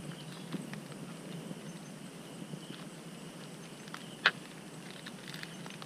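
Light rustles and scattered clicks from a coconut crab and a plastic bag being handled in undergrowth, with one sharp click about four seconds in, over a faint steady insect drone.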